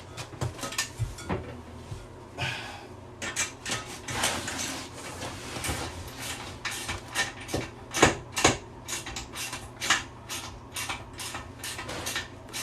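Hand ratchet with a socket clicking and clinking in short irregular strokes as it turns the toilet's tank-to-bowl bolts, metal on metal.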